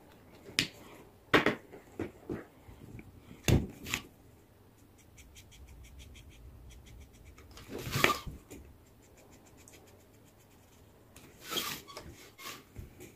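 Felt-tip markers handled and used on a spiral sketchbook: a scatter of sharp clicks and knocks from marker caps and markers against the pad, a run of quick, even ticks of a marker tip stroking the paper in the middle, and two short rustles later on.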